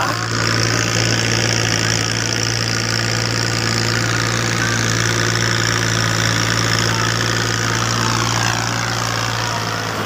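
Tractor diesel engine running at a steady, unchanging speed, a constant low drone.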